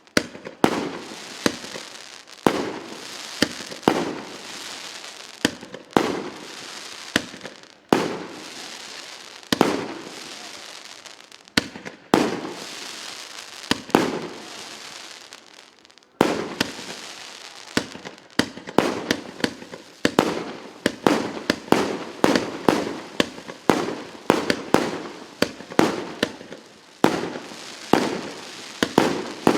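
A 1.2-inch, 150-shot firework cake firing shot after shot. Each shot is a sharp bang followed by crackling and hissing from the bursting stars. The shots come about one every second or so, then faster, about two a second, from roughly halfway through.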